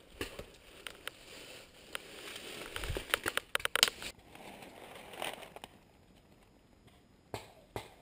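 Rustling and crackling of dry leaves and gear as a paintball player shifts behind a rock wall, with a quick run of sharp clicks about halfway through.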